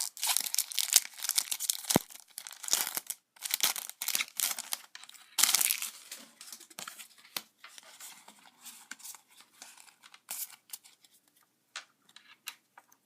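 Foil booster pack wrapper of a Pokémon TCG Plasma Blast pack being torn open and crinkled, dense crackling for the first half that thins to scattered small crinkles and clicks toward the end.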